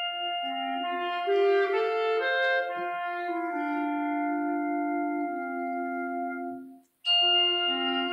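Concert band playing a quiet passage of long held wind chords, the notes coming in one on top of another. The chord fades out after about six and a half seconds, there is a short silence, and a new held chord comes in just before the end.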